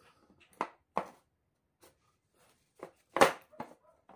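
Handguard of a homemade AR-22 pistol being slid over the barrel and seated against the upper receiver: a few light clicks and knocks, then one sharp knock about three seconds in and a smaller one just after.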